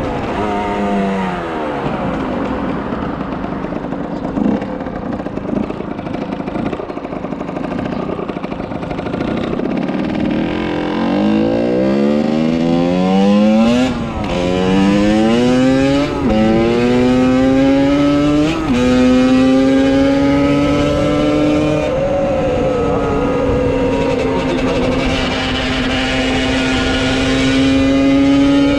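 50cc motorcycle engine, its pitch falling as it slows at first, then accelerating through the gears about a third of the way in: the pitch climbs and drops back sharply three times at the gear changes, then holds steady and high at cruising speed.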